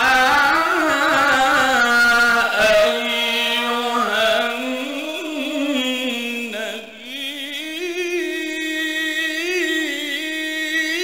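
A man reciting the Quran in a slow, melodic chant. His single voice draws out long held notes with wavering ornaments and breaks off briefly about six to seven seconds in.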